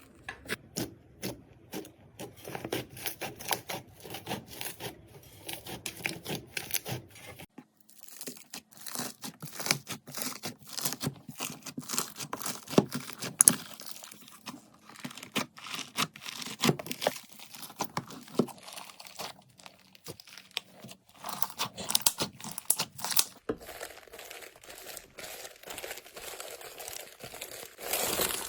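Slime being squeezed and worked by hand, giving dense runs of small sticky crackles and pops. The character of the crackling changes twice, at about a quarter of the way in and again near the end.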